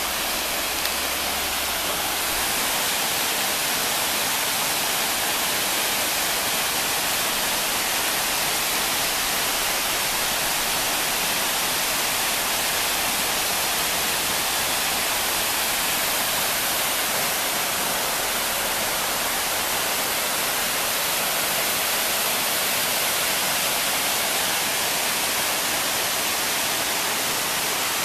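Waterfall spilling down a sloping rock face into a shallow pool: a steady, unbroken rush of falling water.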